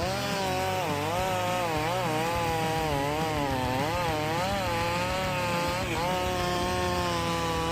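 Chainsaw cutting into wood at high revs. The engine pitch dips and recovers about once a second as the chain loads up in the cut, then holds steady near the end.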